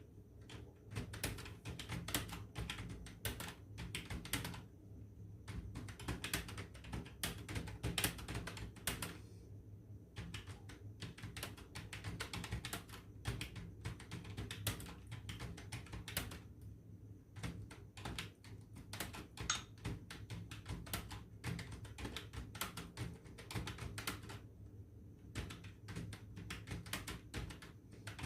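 Computer keyboard typed on fast and continuously, a rapid stream of key clicks broken by a few brief pauses, over a steady low hum.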